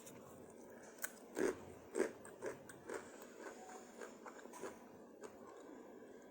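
Close-up chewing and biting of food, with a few louder chews about one and a half to three seconds in and softer mouth sounds after.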